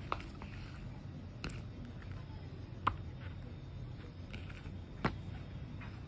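Books being handled and laid out by hand: four short, sharp taps and knocks of the covers over a low steady hum.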